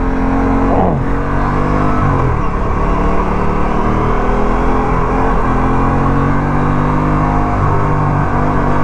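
Aprilia RS 457's parallel-twin engine running at low, fairly steady revs, with a brief falling note about a second in and a few small shifts in pitch after that.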